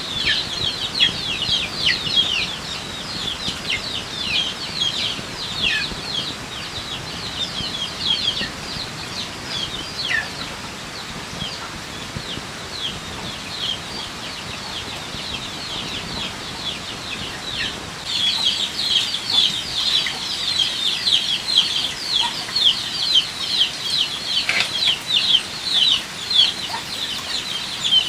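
A flock of chicks peeping: many high, short peeps overlapping in quick succession, each falling in pitch. They thin out in the middle stretch and grow dense again after about eighteen seconds.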